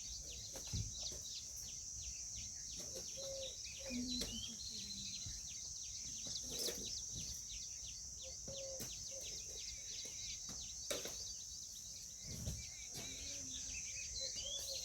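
Outdoor ambience: a steady high-pitched insect drone with many small bird chirps and tweets over it, and a few faint knocks.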